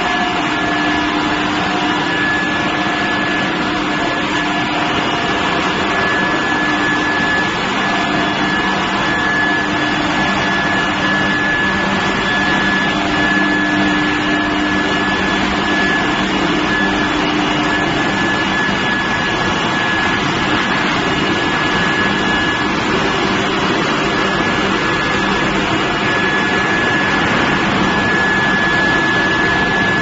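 Steel billet induction heating furnace line running: a loud, steady industrial noise with a constant high-pitched whine and a lower hum running through it.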